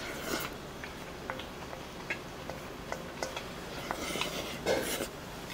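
A person eating at a table: a scattering of short utensil clicks against dishes, with chewing and mouth noises near the start and a louder burst of them about four and a half seconds in.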